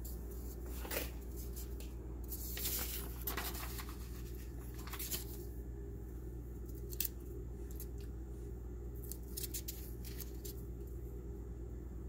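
Sheets of notepad paper being handled and shifted, with scattered short rustles and crinkles over a steady low hum, busiest in the first few seconds.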